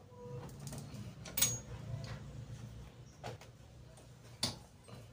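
Sharp metallic clicks and knocks as a spoked rear wheel with drum hub and sprocket is worked into a motorcycle swingarm: three separate clicks, the loudest about a second and a half in, over a low steady hum.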